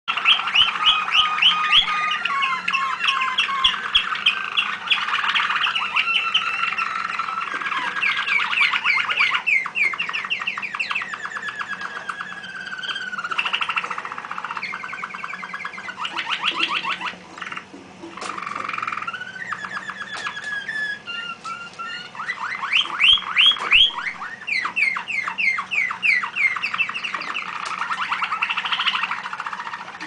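Domestic canaries singing in cages: a nearly continuous song of fast repeated trills and rolling phrases, with a short break a little past halfway.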